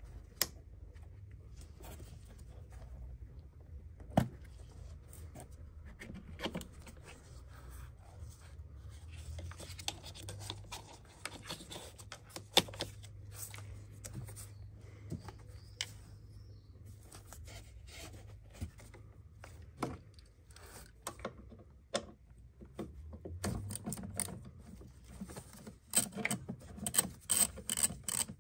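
Hands working at the fuel filter's fittings in a car engine bay: scattered clicks, knocks and scrapes of plastic and metal parts being handled, with two sharper clicks and a quick run of clicks near the end.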